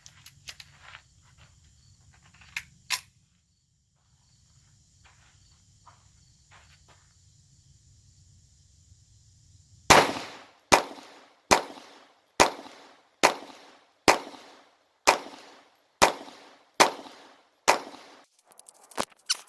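Glock 44 .22 LR pistol fired in a steady string of eleven shots, a little under one a second, starting about halfway in. Before the string, a few faint clicks and knocks.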